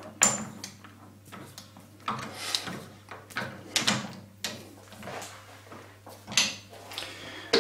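Metal clinks and sliding scrapes as a steel Morse taper sleeve is pushed into a lathe chuck and the jaws are brought in against it: a handful of separate knocks over a faint steady low hum.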